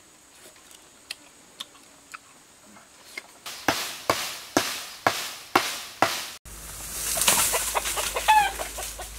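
About six sharp chopping strikes, two a second, of a hand tool hacking into a bamboo stalk. After a cut comes a steady hiss, and a chicken clucks briefly near the end.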